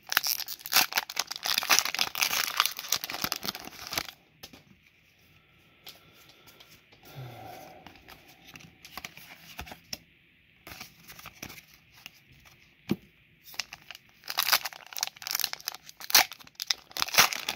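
Foil booster-pack wrapper being torn open and crinkled, in two loud stretches of several seconds each, the second starting about fourteen seconds in, with a much quieter pause between.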